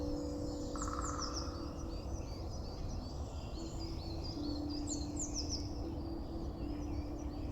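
Recorded wild bird song: many quick, high chirps and short falling calls from several birds, over a low background rumble, with soft held notes of music underneath.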